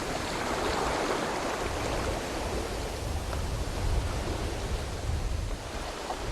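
Ocean waves washing in. A surge swells about a second in and then slowly fades, over a low rumble.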